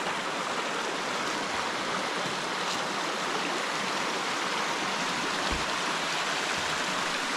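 Shallow stream rapids: water running steadily over and between rocks in a rocky creek bed, a constant babbling rush.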